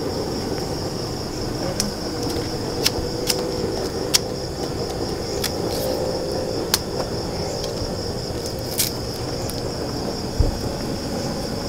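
Crickets trilling steadily at a high pitch, with scattered sharp clicks from a knife cutting and peeling a torch ginger stem. A low steady rumble runs underneath.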